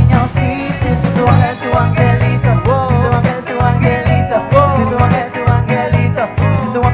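Live band playing an upbeat tropical number: drum kit, electric guitars, bass and keyboard over a steady beat, with a gliding melody line on top.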